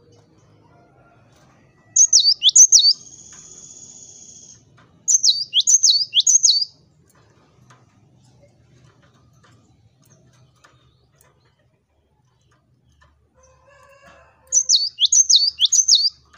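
Cinereous tit (gelatik batu) singing: three phrases of sharp, down-slurred whistled notes, three or four notes to a phrase, about two seconds in, about five seconds in and near the end. After the first phrase comes a harsh buzzing call lasting about two seconds.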